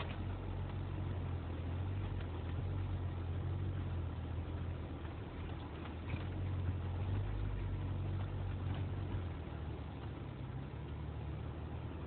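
Jeep Wrangler JK's V6 engine running at low speed while it crawls along a rough dirt trail: a steady low rumble with a few faint knocks.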